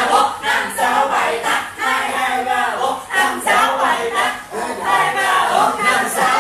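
Several voices singing loudly at once, their pitches wavering and overlapping.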